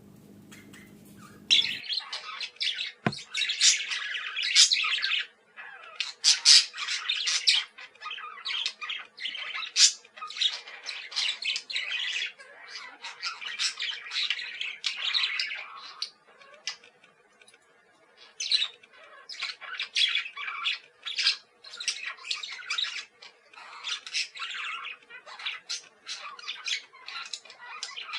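Budgies chirping and squawking in rapid, high-pitched chatter. The chatter breaks off briefly about two-thirds of the way through, then starts again.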